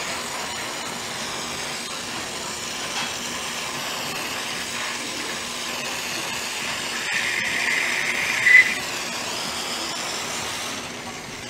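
Glassblowing torch flame hissing steadily as it heats borosilicate glass on a lathe. A louder, higher hiss rises about seven seconds in and stops just after eight and a half.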